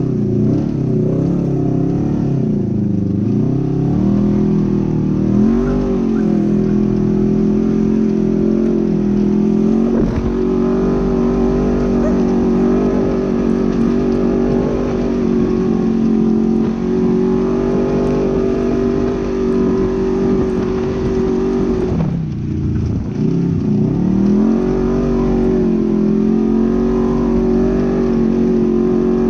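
Polaris RZR 900 XP side-by-side's twin-cylinder engine running hard at steady high revs. Its pitch dips briefly a few times, dropping sharply about 22 seconds in and then climbing back up.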